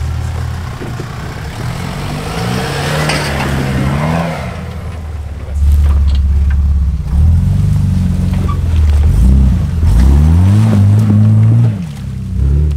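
Off-road 4x4's engine revving hard in repeated bursts, its pitch climbing and dropping. The loudest stretch is in the second half.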